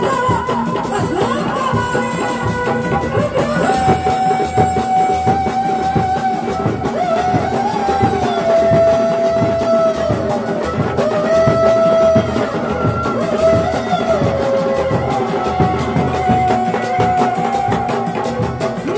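Sundanese reak street music: dogdog drums and large barrel drums beaten by hand in a steady, driving rhythm. Over them, from about four seconds in, a tarompet (Sundanese shawm) plays a held, wavering melody that slides between notes.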